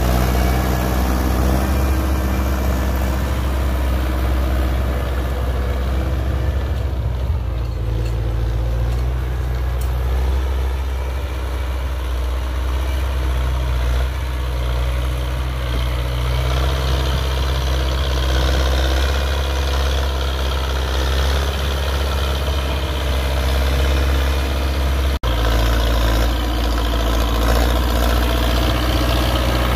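Belarus 925 tractor's diesel engine running steadily under load as it drives a rotary tiller through dry soil. The sound cuts out for an instant about 25 seconds in.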